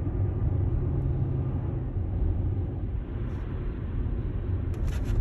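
Steady low rumble of a car being driven, engine and road noise heard from inside the vehicle.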